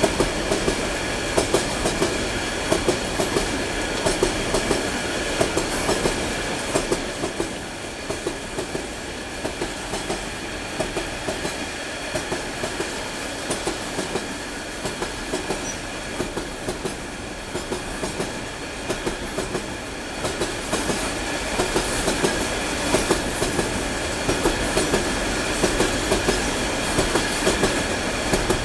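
Container freight train's wagons rolling past close by, wheels clicking over the rail joints in a steady clickety-clack rhythm over a continuous rumble, with a faint steady high-pitched ring above it.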